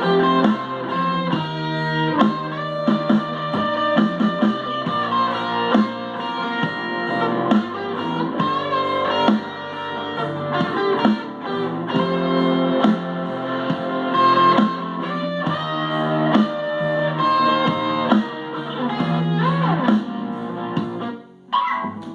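Les Paul electric guitar played through a Boss ME-80 multi-effects pedal and a Fender Super Champ XD amp, with bass and drum backing generated by a Digitech Trio Plus.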